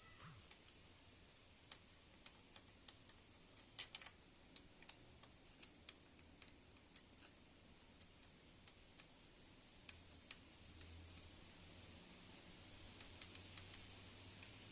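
Faint, irregular metallic clicks and clinks of a wrench working the two bolts that hold a Bajaj Pulsar 135's starter motor, with a cluster of sharper clinks about four seconds in and a quick run of clicks near the end.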